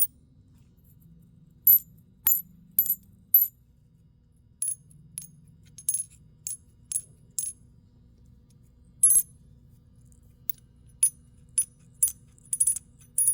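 Coins clinking against each other in about seventeen separate strikes, each a sharp click with a short high ring: four in quick succession near the start, scattered single clinks in the middle, a quicker run near the end. The coins are being struck to compare the ring of silver coins with that of copper-nickel clad coins.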